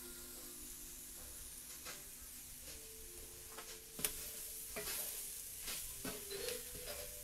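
Roux-coated onion, green pepper, celery and garlic sizzling in a cast-iron skillet, with a wooden spoon scraping and knocking against the pan as they are stirred from about four seconds in.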